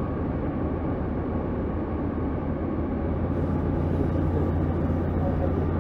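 Diesel passenger train running along the line, heard from inside the carriage: a steady rumble of wheels on rail and the underfloor engine. About three seconds in it grows a little louder, with a steady low hum coming up.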